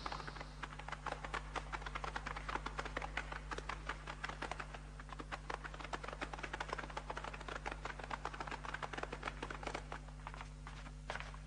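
A dense, irregular patter of many steps from a marching procession on hard ground, over a low steady hum.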